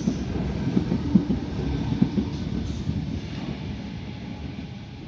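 Sydney Trains Tangara eight-car electric train running out past the platform and receding, its wheels clicking over rail joints in the first couple of seconds, then a rumble that fades steadily away.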